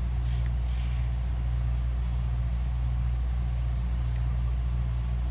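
Steady low hum of running machinery, even and unchanging throughout.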